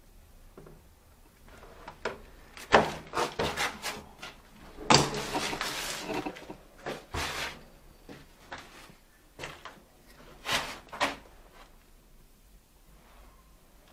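A series of irregular knocks and clatters of hard objects being handled, with a longer scraping rub about five seconds in, dying away after about eleven seconds.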